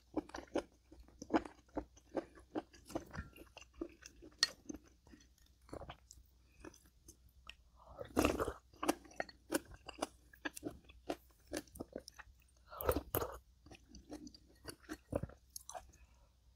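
Close-miked eating: steady chewing with crisp crunching bites, about two or three a second, and two louder, longer noises about eight and thirteen seconds in.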